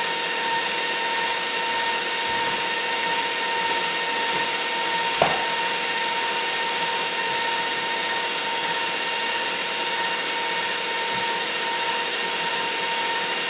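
Electric stand mixer running steadily, whipping butter for frosting, with a constant motor whine. A single sharp knock sounds about five seconds in.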